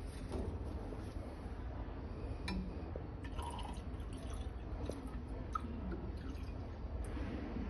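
Liquid poured from one glass test tube into another, pouring and dripping, with a few light clicks of glass. The liquid is graphene dispersed in isopropyl alcohol. A steady low hum runs underneath.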